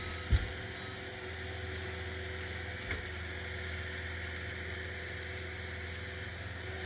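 Steady drone of a Caterpillar skid steer with a brush mulcher running some way off, with a single short thump just after the start.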